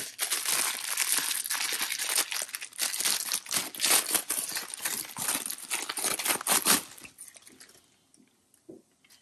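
Clear plastic bag crinkling and crackling as a power adapter and its cable are unwrapped by hand; it dies away about seven seconds in, leaving a few faint clicks.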